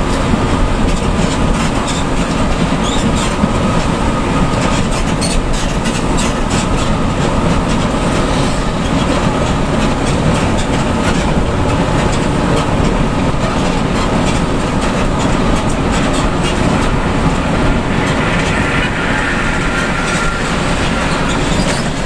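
Steady drone of a Hino RK coach running at highway speed, heard inside the cabin: engine and road rumble with light rattling.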